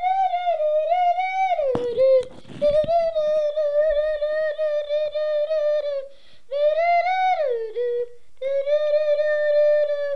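A child humming one high, steady note, held in long stretches of a few seconds with short breaks, the pitch sliding down at the end of some stretches. A brief clatter of clicks about two seconds in.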